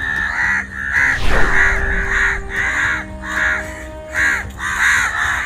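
A flock of crows cawing, many harsh calls overlapping and repeating throughout, over background music with held tones. About a second in a loud falling whoosh cuts across them.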